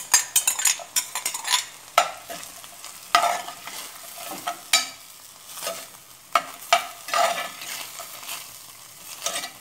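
Metal spoon stirring chopped onion into ground beef in a clay cazuela: a quick run of clicks and taps in the first two seconds as the onion goes in, then separate scrapes of the spoon against the pot every second or so. Under it the meat gives a faint steady sizzle as it cooks on low heat.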